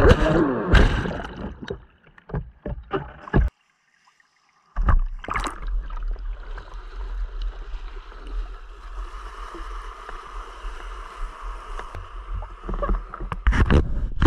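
Water sloshing and gurgling around a capsized RC catamaran, heard close up through its onboard camera, with clicks and a brief dropout early on. This is followed by steady wind rumble and lapping water, and a cluster of knocks near the end.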